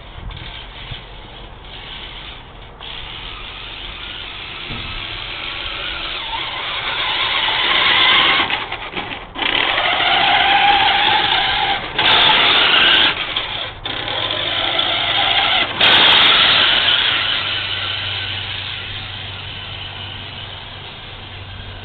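Tamiya Clodbuster radio-controlled monster truck's electric motors and gearboxes whining as it drives through snow. The sound swells and fades and cuts out abruptly several times between about nine and sixteen seconds in.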